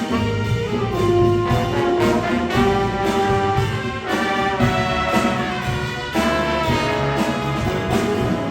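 School jazz band playing live, the brass section to the fore with held notes that change pitch every second or so over a full low end.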